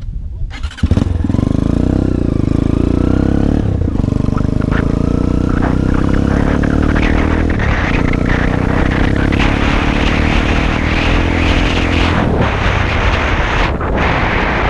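Dirt bike engine pulling away about a second in and running hard as it accelerates, its pitch rising and then dropping back at each gear change, about every four seconds.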